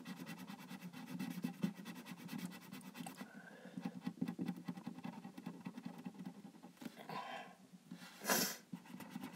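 Felt-tip marker scribbling on tape in quick, short scratchy strokes, with breathing close to the microphone and a short, louder breath about eight seconds in.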